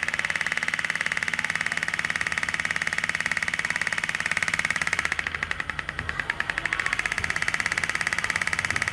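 Small homemade two-stroke engine, converted from a refrigerator compressor, running fast as a rapid, even string of firing pulses. About five seconds in it briefly goes quieter and uneven for a second or so, then picks back up.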